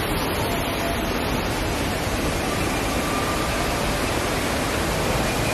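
Steady, even rushing of falling water, like a waterfall, with no breaks.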